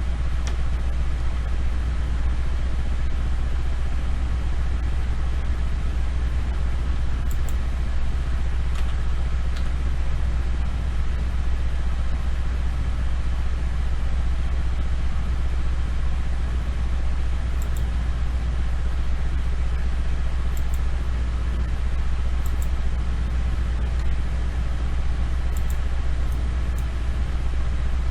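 Steady low hum and rumble of background noise, with a few faint clicks now and then.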